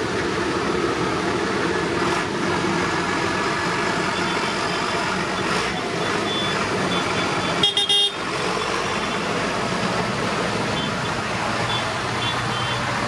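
Diesel engines of a procession of large farm tractors (JCB Fastrac, Massey Ferguson, John Deere, New Holland) running steadily as they drive past one after another, with a short, loud horn toot about eight seconds in.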